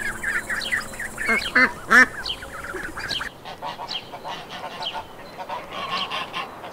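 Ducklings peeping in quick, high calls; after about three seconds the sound cuts to domestic geese calling with soft honks.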